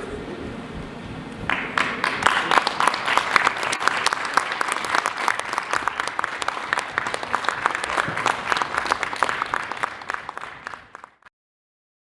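Audience applauding: the clapping starts about a second and a half in, then thins out and cuts off shortly before the end.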